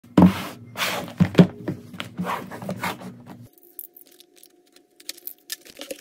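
Cardboard keyboard box being handled and slid across a desk mat: a run of loud swishing scrapes, then quieter after about three and a half seconds, with only a few light taps.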